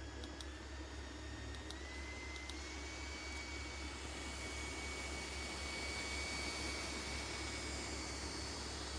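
Small motor of a neck fan whirring, its whine stepping up in pitch at each click of the speed button, a few times in the first couple of seconds, then holding steady.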